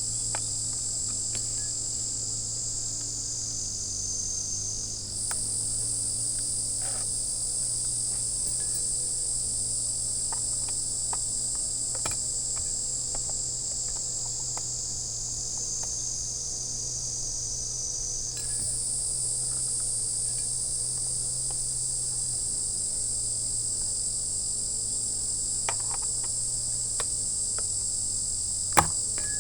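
Steady chorus of shrill insect song, mostly crickets, filling the high range, with its pitch band shifting twice. A single sharp knock near the end.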